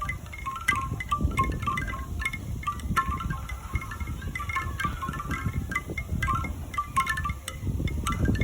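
Bamboo wind chime: hollow wooden tubes knocking together in quick, irregular clusters, over a low rumble.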